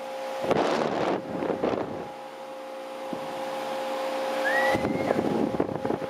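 1995 Lennox HS29 4-ton condensing unit running, its Copeland reciprocating compressor and condenser fan giving a steady, loud hum. Gusts of the fan's discharge air buffet the microphone twice, about half a second in and again near the end.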